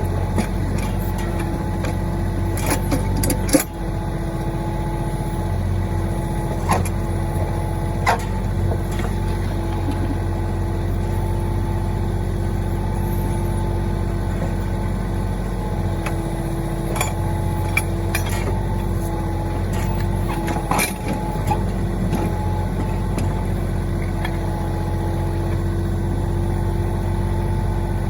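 Mahindra 1626 tractor's three-cylinder diesel engine running steadily while working the backhoe, with a few sharp knocks and clanks scattered through, the loudest about three and a half seconds in.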